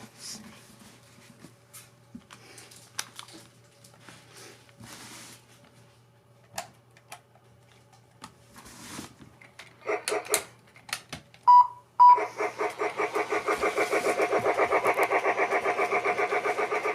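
Light handling noises with small clicks and rustles, then a battery-powered toy train is switched on: two short beeps, then its motor runs with a rapid, even pulsing, about four or five pulses a second.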